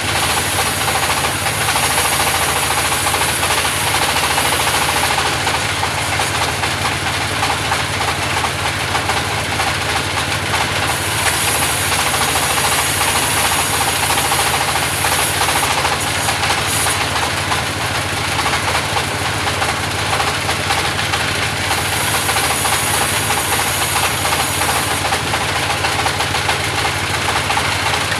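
Engine-driven sawmill running steadily while sawing timber for pallet wood: a constant engine hum under loud, even machine noise.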